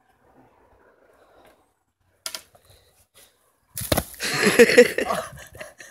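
A person falling from a stick bar onto dry grass and brush: a sharp crack a little over two seconds in, then near the end a heavy landing followed by loud rustling of dry grass and twigs under the body.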